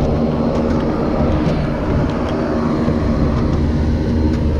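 Steady machinery drone with a low hum from the apron beside a parked Boeing 777, with a few faint light taps.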